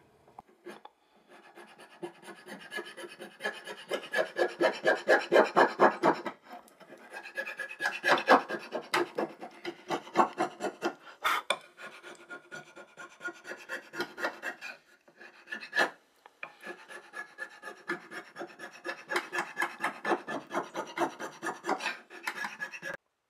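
A blunt chisel scraped rapidly back and forth across a wooden block, smoothing torn grain: a rasping scrape at about five strokes a second, in runs broken by a few brief pauses.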